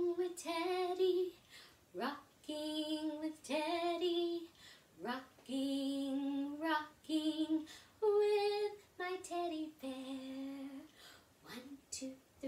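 A woman singing a slow children's song unaccompanied, in phrases of held notes, sliding up into several of them.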